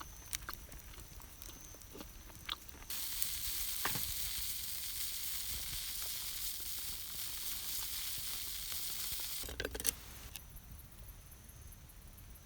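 Food sizzling in a hot skillet. The sizzle starts suddenly about three seconds in and cuts off just after ten seconds, with a few faint clicks before it.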